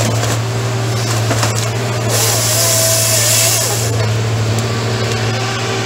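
Fabtek FT-133 tracked harvester running steadily while its two-roller harvester head saws through a pine log. A bright hiss with a faint whine is heard from about two seconds in, lasting about two seconds.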